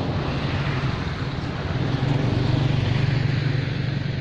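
A motor vehicle's engine running past, a low steady hum that swells to its loudest around the middle and then fades.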